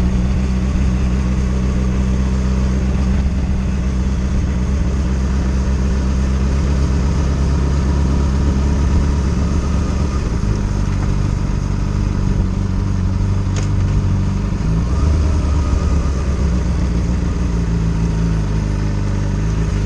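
Sport motorcycle engine running steadily at a slow cruise, heard from a camera on the bike. Its pitch shifts about halfway through.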